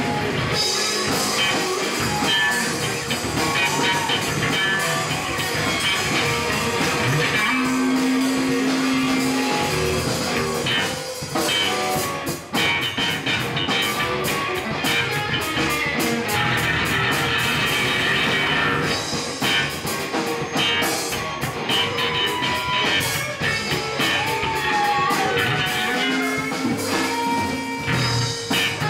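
Live blues-rock band playing an instrumental stretch: electric guitars over a drum kit, the lead guitar holding single notes and bending others. The drumming and cymbal hits grow busier about halfway through.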